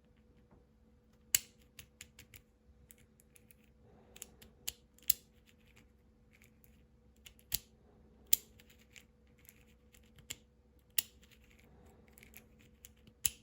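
Irregular sharp metallic clicks from a cutaway Fichet F3D lock being worked with its key, the loudest about a second in, over a faint steady hum.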